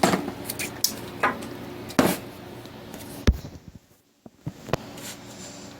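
Scattered knocks and clicks of small objects being handled on a surface, about half a dozen, the loudest about two and three seconds in, with a brief drop to silence just after the middle.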